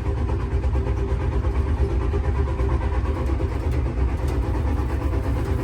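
Steady low rumble of a passenger train, heard from inside its toilet compartment.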